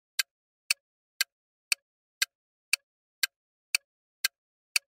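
Countdown-timer ticking sound effect, a steady tick about twice a second.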